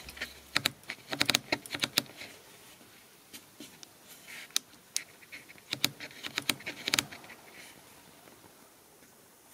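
Irregular clusters of sharp clicks and light taps close to the microphone: one burst about half a second to two seconds in, scattered ticks after, and a second burst around six to seven seconds in.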